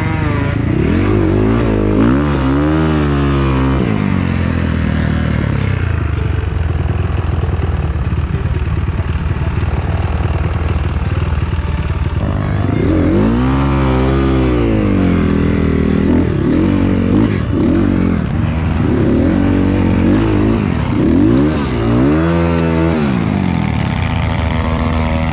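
Motorcycle engine revving, its pitch climbing and falling back several times over a steady low drone.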